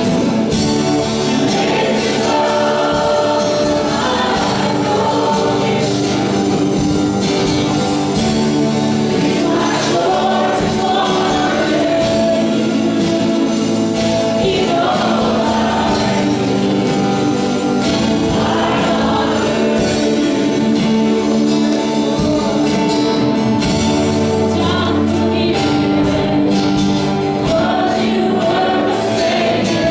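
Church worship team performing a gospel song: several voices singing together over a band, with a steady beat.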